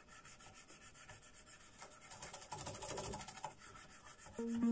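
Toothbrush scrubbing the frets and fretboard of a bass guitar: quick back-and-forth scratchy rubbing strokes, several a second. Music comes in near the end.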